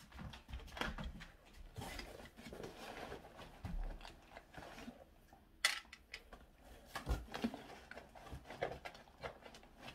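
A small plastic case and cardboard packaging being handled: soft rustling with scattered light clicks and taps. The sharpest click comes about five and a half seconds in.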